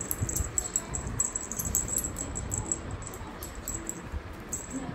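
Shih Tzu puppy moving about and playing, with many quick irregular clicks and light knocks.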